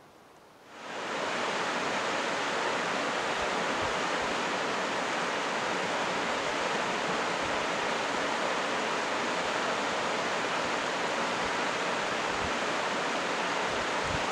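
The North Fork Quinault River flowing over a gravel bar: a steady, even rush of water that fades in about a second in.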